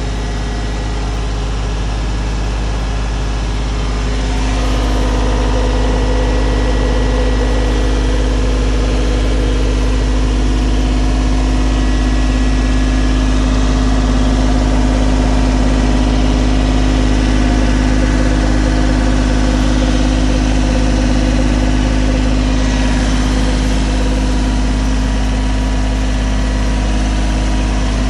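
A motor running steadily with a constant low hum, growing louder about four and a half seconds in and then holding even.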